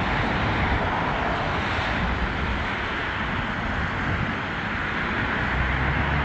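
Steady rushing noise with no clear pitch, with a low rumble swelling near the end.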